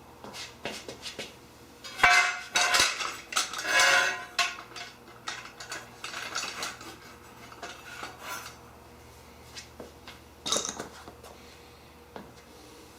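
Aluminum extrusions and metal corner connectors clinking and scraping as the connectors slide into the extrusion slots. The loudest run of clatter comes about two to four seconds in, with scattered lighter clicks after it and one more sharp clink later.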